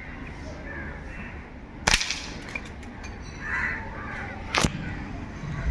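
Two air rifle shots from a Precihole SDB Sniper, each a single sharp crack, about two and a half seconds apart, fired while the scope is being zeroed.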